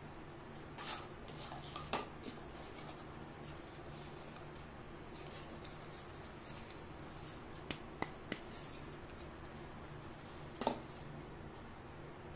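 Hard plastic toy doctor-set pieces clicking and tapping as they are handled and set down on a table: scattered sharp clicks, three quick ones in a row about eight seconds in and a duller knock near ten seconds, over a steady low hum.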